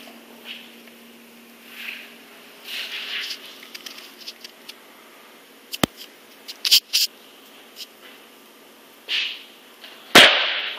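Wooden planks clacking against a concrete floor as they are laid down: a few sharp clacks in the middle and the loudest one near the end, with soft scuffing sounds in between.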